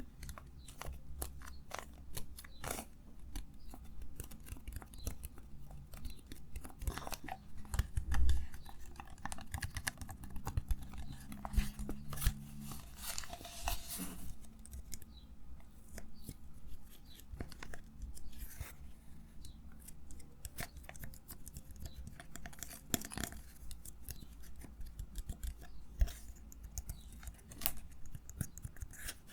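Close-miked ASMR trigger sounds: dense, irregular crackling and clicking of an object being handled, with one heavier thump about eight seconds in.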